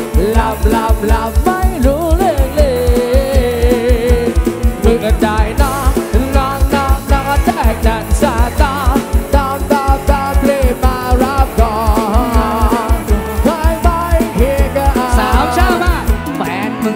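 Loud amplified live band music from a Thai rot hae sound truck: a rapid, steady bass-drum beat of about five strokes a second under a melody with wavering held notes.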